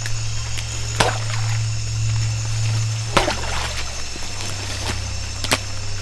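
Steady buzzing of rainforest insects over a low steady drone, broken by three sharp hits about two seconds apart.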